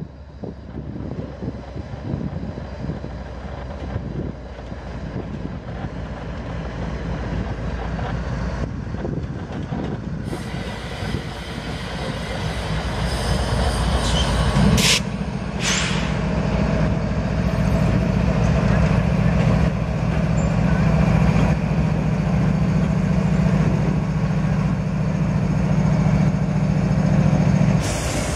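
GE ES44AC diesel-electric locomotive, with its GEVO-12 V12 engine, approaching at slow speed with a train of boxcars and passing close by. The engine's drone grows steadily louder, then holds steady and strong as the locomotive draws alongside. There are two brief hisses about halfway through.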